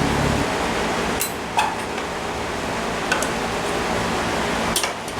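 A few light, sharp clicks and clinks of tools or metal parts being handled, over a steady air-conditioner hiss; a low hum drops out shortly after the start.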